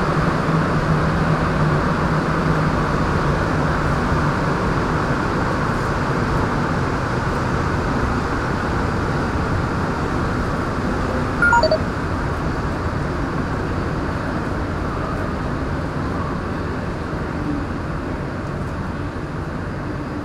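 MR-73 rubber-tyred metro train running through a tunnel, heard from inside the car: a steady rush and rumble that eases slightly toward the end as it comes into a station. A brief, sharper, higher sound cuts through about halfway.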